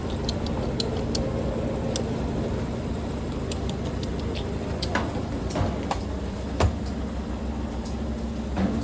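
Washing machine in a fast spin cycle: a steady hum and rush of the spinning drum, with scattered light ticks and knocks, one sharper knock about two-thirds of the way through.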